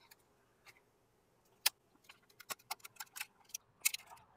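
Irregular sharp clicks and taps of a plastic wheel cover and its metal retaining ring being handled as the ring is worked into the clips on the cover's back. One loud click comes about a second and a half in, then quicker clicks follow to the end.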